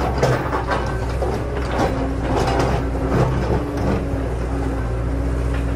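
Toy RC excavator's arm motors and plastic gearboxes whirring and ratcheting in clicky bursts during the first four seconds as the arm presses down on a toy truck, over a steady low hum.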